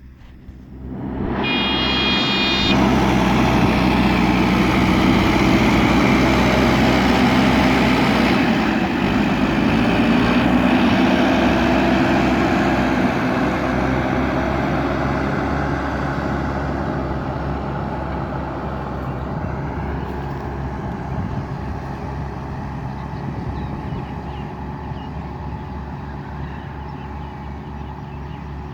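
Heavy diesel engine running steadily under load. It grows loud about a second in and slowly fades over the second half, with a brief high-pitched tone about two seconds in.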